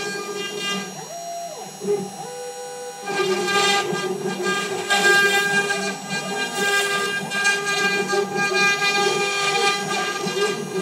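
CNC router carving wood: the stepper motors whine in shifting pitches that glide up and down as the axes speed up and slow down, over the spindle and bit cutting into the board. About three seconds in the cutting gets louder and denser.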